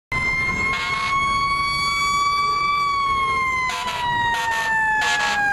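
Fire apparatus Federal siren wailing, its pitch slowly rising and then falling, with short air horn blasts over it: one about a second in, then a rapid series of blasts from near the end onward.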